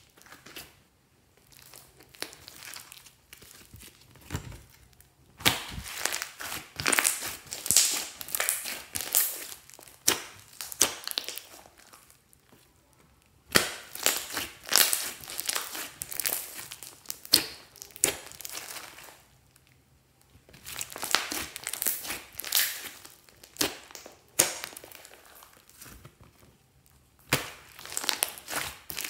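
Slime being squished and kneaded by hand, crackling and popping in bouts of several seconds with short pauses between.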